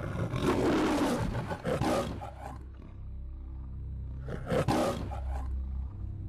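The MGM logo lion roaring twice: a long roar in the first two and a half seconds, then a shorter one about four and a half seconds in, over a steady low drone.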